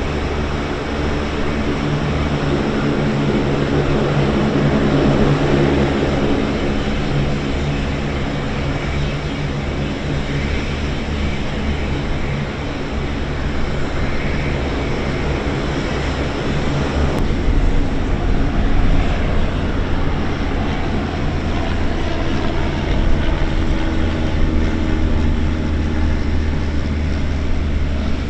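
C-130J-30 Super Hercules turboprops, Rolls-Royce AE 2100 engines turning six-bladed propellers, running steadily at taxi power as the aircraft rolls past. The drone swells about five seconds in and changes abruptly about seventeen seconds in to a deeper engine sound.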